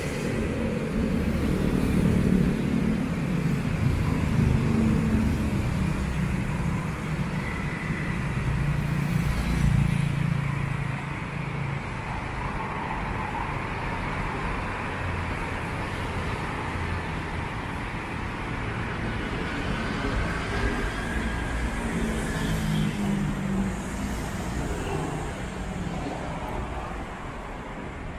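Road traffic: a steady low rumble of cars and motorbikes passing on a city street, swelling a few times as vehicles go by.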